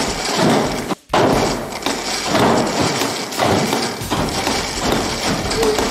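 Animated 'Thrashin' Trash Dumpster Diver' prop thrashing its legs in a galvanized metal trash can: repeated thumping and rattling against the can, with a brief gap about a second in.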